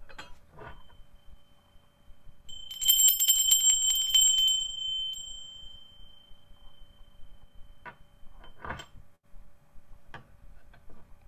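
A small bell rung to mark a close: shaken rapidly for about two seconds, then a single high tone ringing on and fading over about three seconds. A few soft handling knocks come before and after it.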